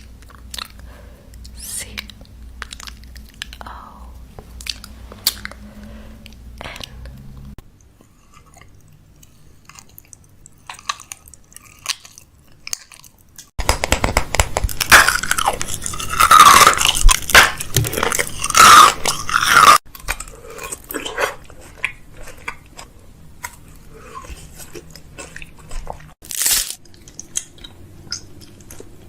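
Close-up crunching and chewing of crisp snacks, in several short takes with cuts between them. The crunching is loudest and densest for about six seconds in the middle.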